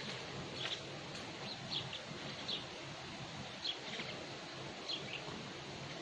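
Short, high bird chirps scattered a few times over a steady outdoor background hiss.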